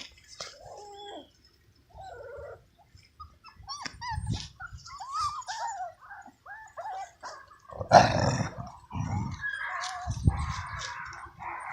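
Several month-old puppies whining and yipping in short, rising-and-falling high calls. Low thumps and scuffling come in a few times, loudest about eight seconds in.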